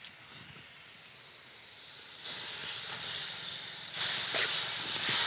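Raw chicken pieces sizzling and hissing in a kadai of onion-tomato masala, the hiss getting louder in two steps, about two seconds in and again about four seconds in.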